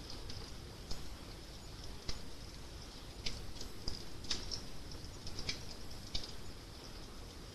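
Wood fire crackling: irregular sharp pops and snaps, one or two a second, over a steady low rumble and hiss of burning.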